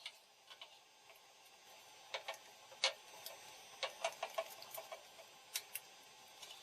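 Light, irregular clicks and taps of small wooden boards being set down and pushed into place against each other.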